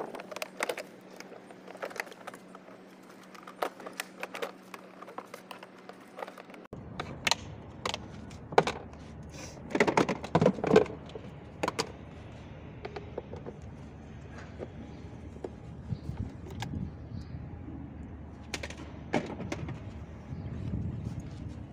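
Hard plastic dashboard and body parts of a child's ride-on toy truck being handled and shifted, giving scattered clicks and knocks, with a cluster of louder knocks about ten seconds in.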